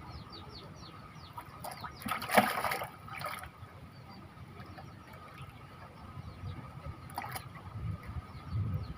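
A short, loud splash of water about two and a half seconds in, and a smaller one near the end, over small birds chirping steadily in the background.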